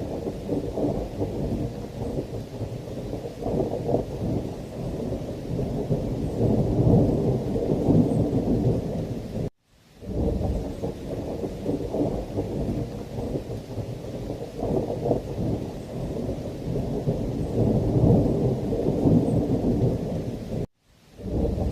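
Thunderstorm: continuous low rumbling of thunder over heavy rain. It cuts out abruptly to silence for an instant about ten seconds in and again near the end.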